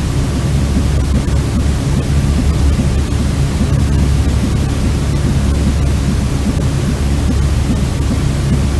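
Steady white noise of the kind played to soothe babies to sleep: an unbroken rushing hiss, heaviest in a low rumble, without any change.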